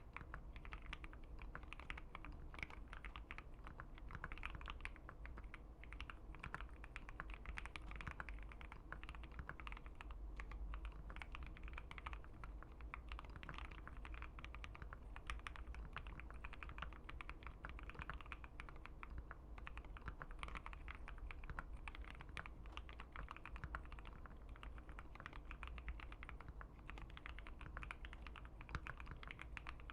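Steady typing on a Keychron Q1 mechanical keyboard fitted with Gateron Milky Yellow linear switches on an FR4 plate: a continuous stream of fast keystrokes.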